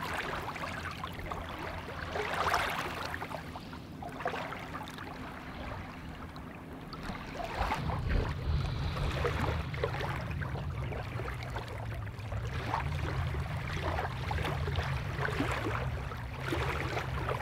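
Small lake waves lapping on a gravel shoreline, with a low rumble of wind on the microphone from about eight seconds in.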